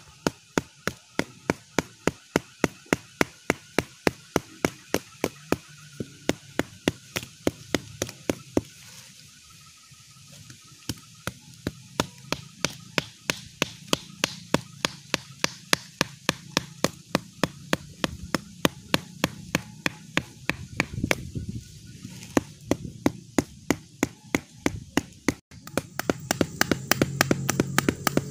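Knife chopping on a cutting board in a steady rhythm of about three strokes a second, pausing briefly partway through.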